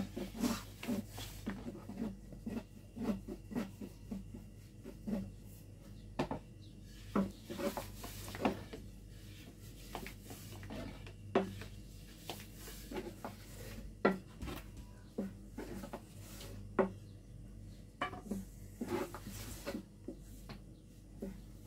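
Long thin wooden rolling pins working flatbread dough on round wooden boards: irregular wooden knocks and rubbing as the pins roll and tap against the boards, over a faint low steady hum.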